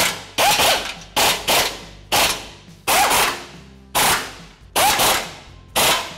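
A cordless impact wrench running a 14 mm socket on an extension, hammering skid plate bolts tight in about ten short bursts. Each burst has a brief motor whine and dies away quickly.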